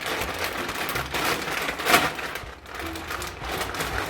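Packaging being torn open and crinkled by hand: a run of crackling and rustling with a sharp, loud rip about two seconds in.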